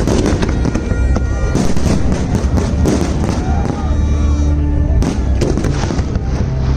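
Large fireworks display: continuous crackling and bangs from many shells and crackle effects bursting at once.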